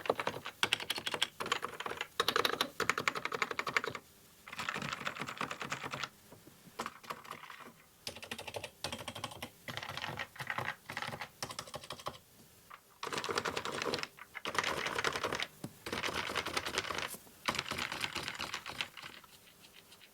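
Vintage JDL OEM keyboard with Topre switches being typed on fast, in runs of rapid keystrokes broken by short pauses, each key making the soft Topre 'thock'.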